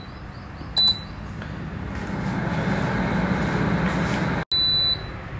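Air fryer's touch panel beeping once, then its fan starting up and building into a steady whir of circulating hot air. After an abrupt cut, a long beep from the fryer signals the end of cooking.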